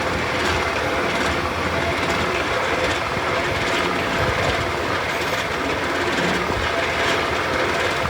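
Lely Welger RPC 445 Tornado Vario round baler running, a steady mechanical noise with faint, regularly repeating ticks.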